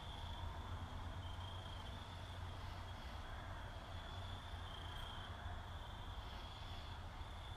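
Steady background sound: a continuous high-pitched trill that shifts slightly in pitch now and then, over a low steady hum.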